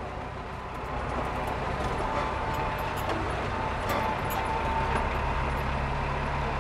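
Landini 65 Blizzard tractor's diesel engine running steadily at low road speed, heard inside the cab, growing a little louder about a second in, with scattered light clicks and rattles.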